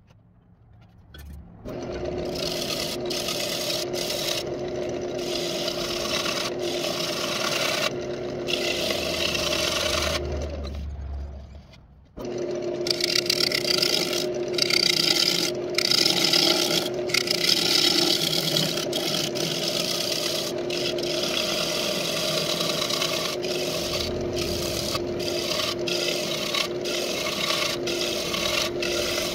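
Wood lathe starting up about a second and a half in, then a turning tool cutting inside a spinning walnut bowl: a scraping, rasping cut over a steady motor hum, broken by many short pauses as the tool lifts off. The sound drops away briefly about eleven seconds in, then the cutting resumes.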